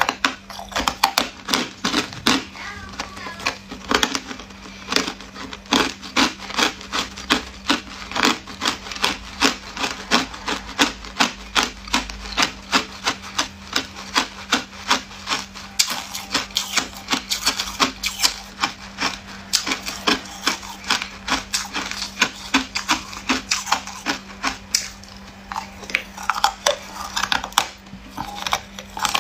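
Hard ice cubes being chewed and crunched between the teeth: a rapid run of sharp crunches, several a second.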